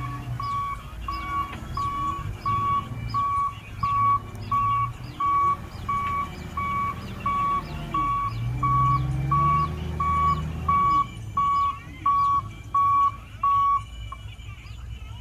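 Dump truck's reversing alarm beeping steadily, about one and a half beeps a second, over its engine running as it backs up. The engine speeds up briefly in the middle, and the beeping stops near the end as the truck halts.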